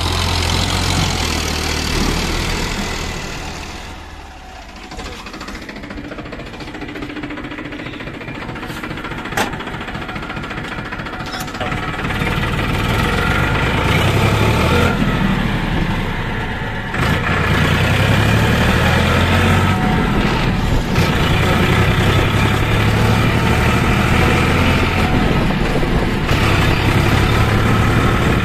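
Farmtrac XP41 tractor's diesel engine running. It eases down to a slow, even beat a few seconds in, then picks up and runs louder and steadier as the tractor drives along, with a further rise in level about two-thirds of the way through.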